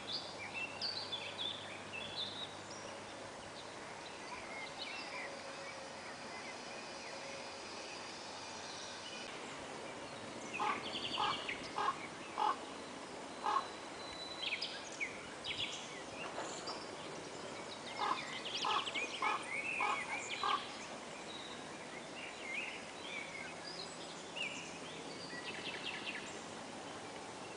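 Outdoor ambience with animal calls: two runs of about five short, evenly spaced calls, the first about ten seconds in and the second about eight seconds later, over scattered high chirps like small birds.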